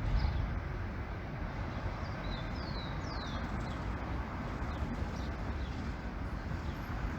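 Small birds giving short, high, falling chirps now and then, most of them a few seconds in, over a steady rumble of street traffic.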